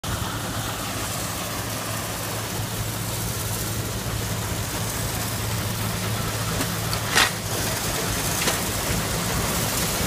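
Steam traction engines running: a steady low mechanical drone, with one short, sharp, noisy burst about seven seconds in.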